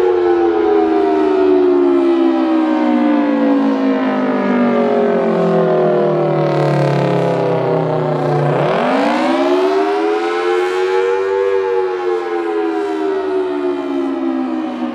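Federal Signal Thunderbolt 1000T dual-tone civil defense siren sounding its attack signal. Two tones a major interval apart slide slowly down in pitch for several seconds, swoop quickly back up about eight and a half seconds in, then start falling again.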